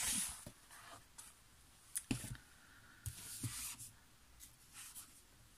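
Paperback books handled by hand: a short rustle of the cover sliding against the hands, then a few soft taps and brief rubbing sounds about two and three seconds in.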